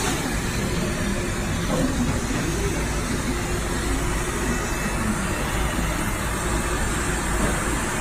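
Automatic filter bag sewing line running with a steady, even machine noise.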